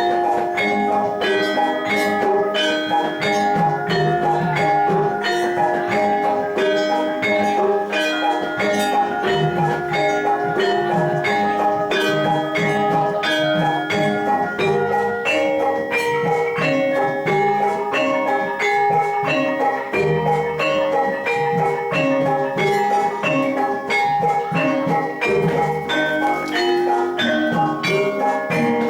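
Javanese gamelan music accompanying jathilan: bronze metallophones and gongs ringing in a fast, steady run of strokes over percussion.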